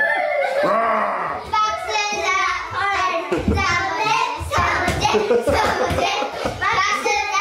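Several young children's voices chattering and calling out over one another, with a few low thumps of feet on a wooden floor as they hurry along.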